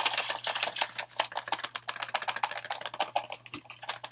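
Packaging of a COVID home test kit being handled close to the microphone: a fast, dense run of sharp clicks and crackles.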